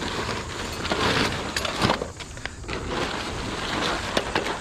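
Wet plastic garbage bag being handled and pulled open by hand, rustling and crinkling, with a few sharp clicks near the middle.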